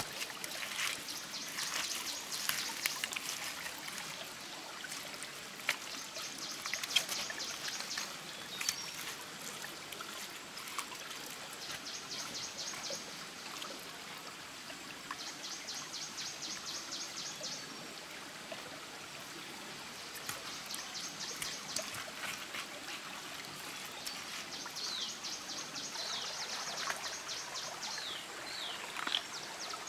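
Shallow stream trickling over rocks, with scattered knocks and wet slaps as flat stones and mud are set by hand. A high, rapidly pulsing trill comes in short spells every few seconds, and a few falling chirps sound near the end.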